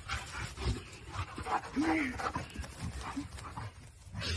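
A dog panting, with one short rising-and-falling whine about two seconds in.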